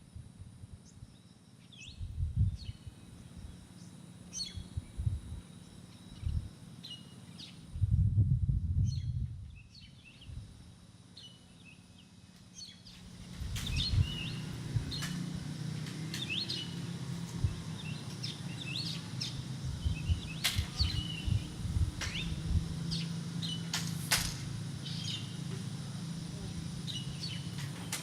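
Several small birds chirping and twittering in short, high calls, over a low rumble that comes in bursts and then runs steadily from about halfway through.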